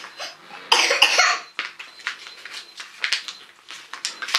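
A child coughs once, a short harsh cough about a second in, with faint light taps and clinks around it.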